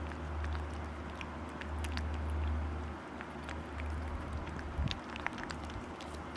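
Cats licking and eating a Churu paste treat, making small wet clicks and smacks, over a steady low hum.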